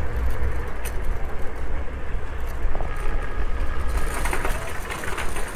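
Riding noise from an e-scooter moving along a city street: a steady, heavy low rumble of wind and wheels on the microphone. Faint voices of passers-by come in about four seconds in.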